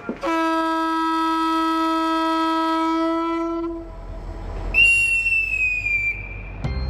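Diesel locomotive horn sounding one long steady note for about three and a half seconds, followed a second later by a high whistle that falls slightly in pitch for about a second and a half. Music starts right at the end.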